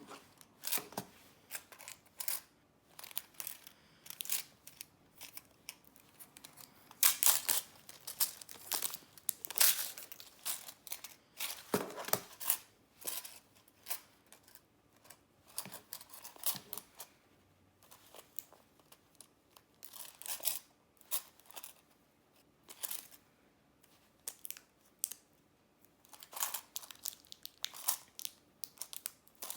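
Packaging being torn open and handled, with irregular crinkling and tearing throughout.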